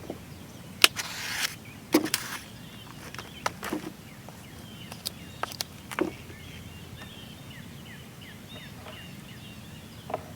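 Handling noises while baiting a fishing hook with chicken breast: scattered sharp clicks and knocks and a brief rustle over the first six seconds. Faint, quickly repeated high chirps follow in the second half.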